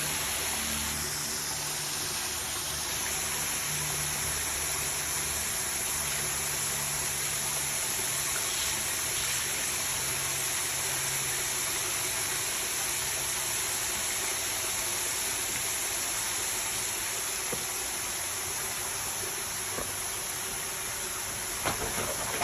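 Water running steadily in a continuous rush, with a low hum underneath for about the first half.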